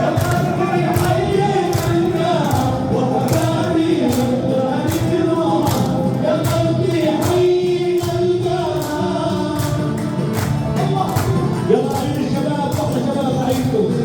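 Music with men singing together in chorus over a steady, regular percussion beat.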